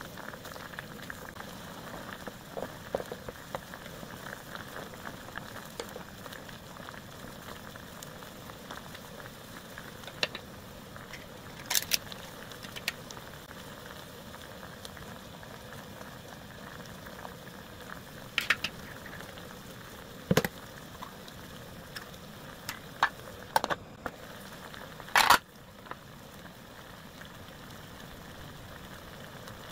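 Ramen broth boiling in a small pot: a steady bubbling hiss, broken by a few sharp clicks and knocks, the loudest late on.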